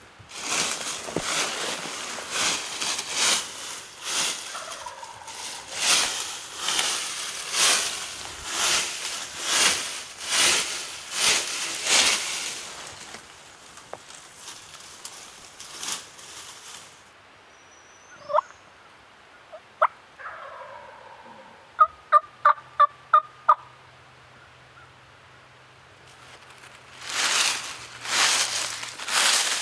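Crunching and rustling in dry leaf litter, then a few sharp clicks and, about two-thirds of the way through, a loud run of about seven evenly spaced turkey call notes. The leaf rustling starts again near the end.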